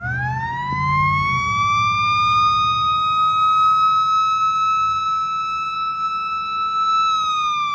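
Fire engine siren winding up over about two seconds to a steady high wail, then beginning to fall in pitch near the end.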